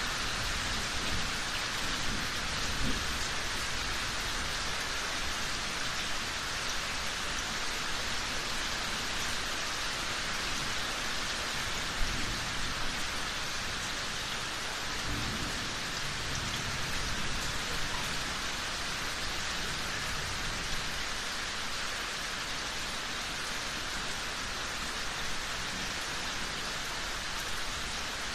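Steady heavy rainfall hissing and pattering on surfaces, with low rolls of distant thunder twice and a single sharp drop hit about twelve seconds in.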